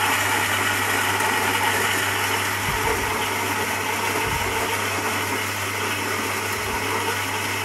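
Built-in coffee grinder of a Philips EP1220 bean-to-cup espresso machine running steadily with a low motor hum. This is its first grind with the grinder still empty of beans, so it grinds too little coffee for the first cup.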